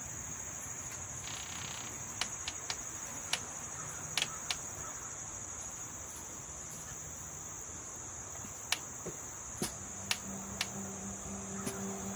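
Steady high-pitched chorus of insects, with a few sharp clicks scattered through it.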